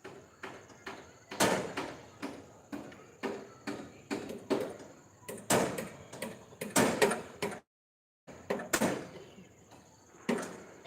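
Irregular knocks and bangs, about one or two a second, from centring (formwork) construction work: hammering and handling of shuttering pieces. The sound cuts out completely for under a second about two-thirds of the way through.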